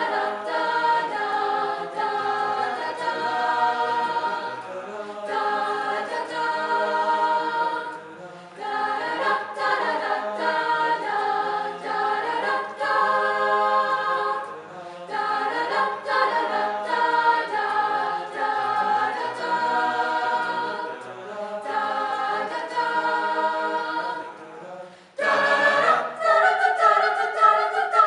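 Mixed-voice school choir singing in phrases with short breaks. About 25 seconds in, after a brief dip, the singing comes back louder and brighter.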